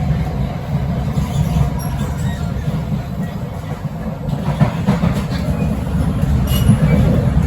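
Running noise inside a Kawasaki-CRRC Qingdao SiFang C151A train carriage: a steady low rumble of wheels on rail and running gear as the train travels, with a few faint short high squeals.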